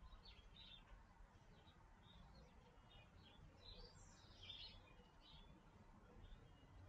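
Near silence, with faint bird chirps scattered through it, mostly in the middle.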